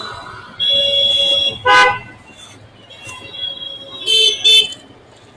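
Vehicle horns honking in busy road traffic: one toot held for about a second, a short loud blast just before two seconds in, and two quick blasts about four seconds in.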